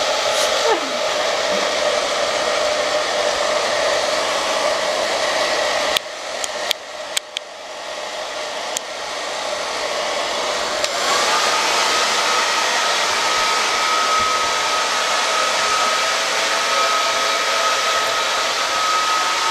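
Hand-held hair dryer blowing steadily while drying a dog's wet coat. About six seconds in it drops much quieter, with a few sharp clicks. It then builds back up, and from about eleven seconds on it runs with a steady high whine.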